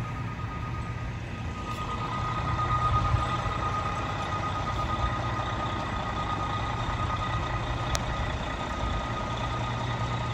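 Fire engine's diesel engine running, a steady low rumble with a steady high-pitched whine over it, swelling slightly about two to three seconds in. A single sharp click comes near the end.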